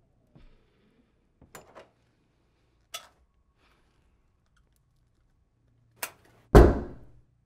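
A few soft knocks and clicks of someone moving about a wooden room, then one loud thud near the end that dies away briefly.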